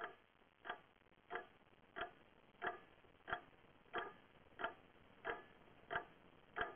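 Clock ticking steadily, about three ticks every two seconds.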